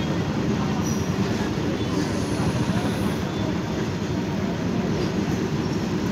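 Freight train of covered goods wagons rolling past at close range: a steady rumble and rattle of wagon wheels on the rails.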